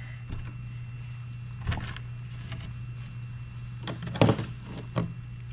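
A few light clicks and knocks of small parts and bolts being handled while Flight Fins pieces are fitted onto a Onewheel+ XR, over a steady low hum.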